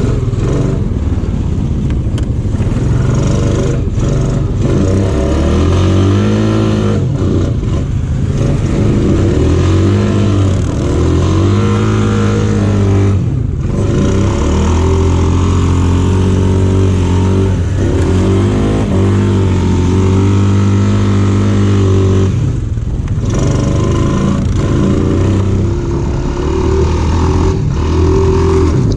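An off-road vehicle's engine runs hard along a trail, its pitch rising and falling as the throttle is worked. It drops off briefly twice, once about halfway through and again about three quarters of the way in.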